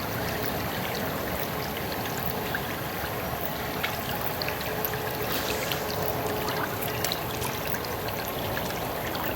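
River water flowing steadily, with scattered faint ticks.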